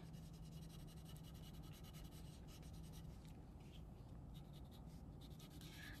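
Faint scratching of a red wax crayon rubbed back and forth on drawing paper, colouring in.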